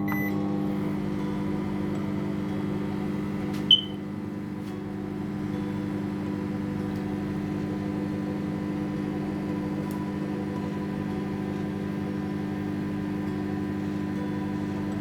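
Microwave oven running with a steady hum while it heats, with one sharp click about four seconds in.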